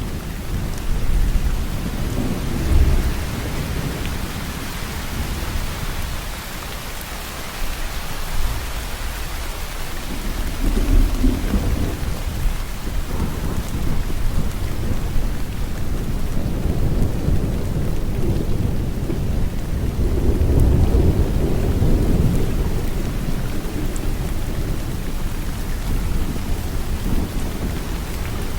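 Steady falling rain with rolling thunder. Low rumbles swell a few seconds in, again about ten seconds in, and once more past the middle.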